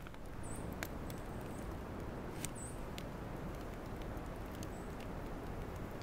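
Wood campfire crackling, with a sharp pop every second or so over a steady hiss, and a few short, faint high squeaks.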